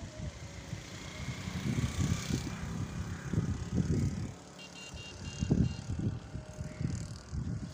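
Gusty wind buffeting the microphone in uneven low rumbles, over a steady rush of wind through trees and crops as a thunderstorm gathers. A short high-pitched chirp sounds about five seconds in.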